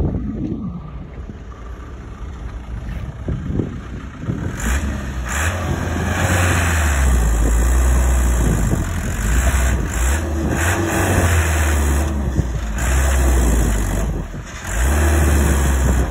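Loaded dump truck's engine revving hard under load, with its rear wheel sunk in mud. The engine comes in loud about four seconds in, eases off briefly twice, and picks up again each time.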